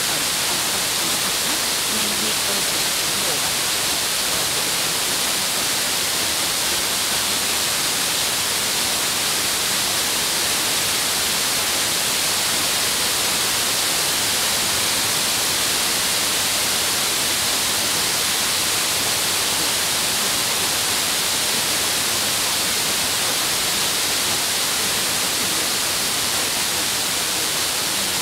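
Steady hiss of an FM radio receiver tuned to 56.4 MHz: the distant Vietnamese station arriving by F2-layer skip has faded down into the noise, so little or nothing of its programme comes through.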